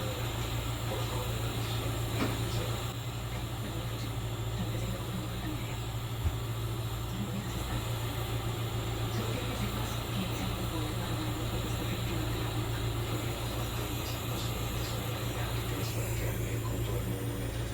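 Steady hiss over a constant low hum, typical of a jeweller's gas torch flame melting 14k gold, with one sharp click about six seconds in.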